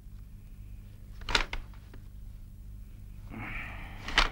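Metal serving tongs clicking against a metal tray of ring buns as pastries are picked up: a sharp click about a second and a half in, a short rustle, then a louder click near the end, over a steady low hum.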